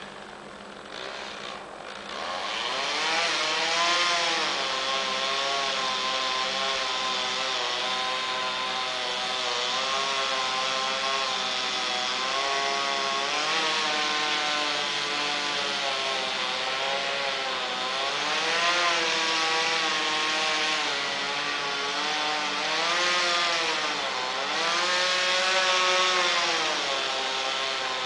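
Chainsaw revving up about two seconds in, then running hard while cutting down a tree, its pitch sagging and climbing again every few seconds as the chain loads up in the wood.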